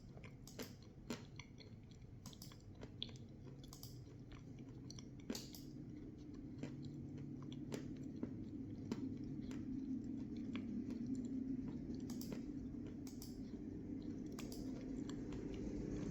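Close-up chewing of crunchy food: sharp crunches, more frequent in the first half, over a low hum that slowly grows louder.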